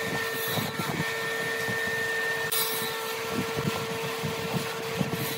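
Hands placing and pressing a cardboard template on a wooden board and running a marker along its edge: soft knocks and rubbing. Underneath is a steady machine hum with a held tone.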